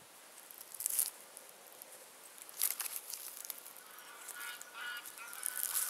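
Brief scuffs and rustles, three or so short bursts, of people clambering over and reaching in among limestone rocks.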